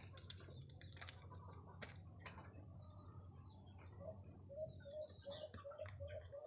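Faint scattered clicks and soft snaps of oyster mushroom clusters being picked off plastic grow bags by hand. From about four seconds in, a faint short chirp repeats about four times a second.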